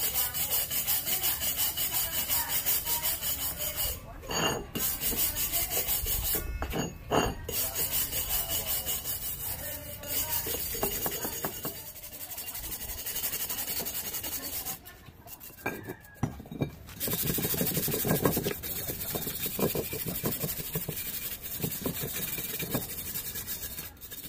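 Hand scraper scraping rust off a rusted iron barbell weight plate in quick repeated strokes, a few a second, with short pauses between bouts.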